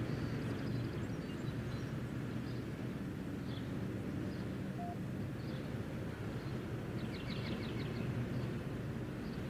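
Steady low background rumble with faint high chirps now and then, and a quick run of them about seven to eight seconds in.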